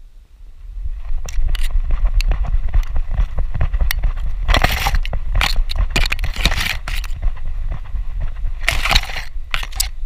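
Reed stems and tall grass brushing and scraping against a dog-harness-mounted GoPro as a cocker spaniel pushes through dense vegetation: irregular crackling and scraping under a steady low rumble. It picks up about a second in, with the thickest rustling around the middle and again near the end.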